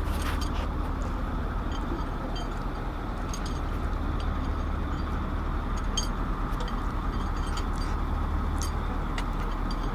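Steady low drone of a vehicle engine running nearby, with scattered light metallic clinks of parts and tools being handled during engine assembly.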